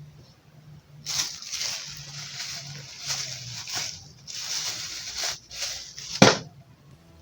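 Several bursts of rasping scraping, plausibly the metal legs of a power transistor being scraped clean before soldering and testing, ending in one sharp click about six seconds in.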